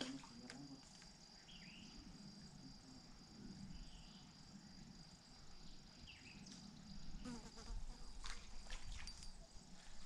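Faint, steady high-pitched insect drone. A bird gives a short call three times, a couple of seconds apart, and a few sharp clicks and rustles come about seven to nine seconds in.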